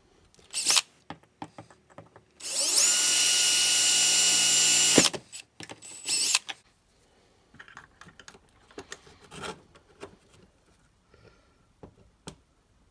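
Cordless drill boring a small hole in a 3/8-inch cap: a steady high whine at full speed for about two and a half seconds, starting a little over two seconds in and cutting off sharply. Short spurts of the drill come just before and after, then faint clicks and handling.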